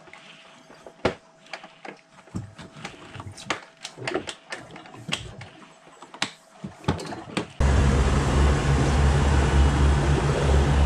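Scattered light clicks and knocks. Then, about two-thirds of the way in, an abrupt cut to a loud, steady boat engine running with the boat under way.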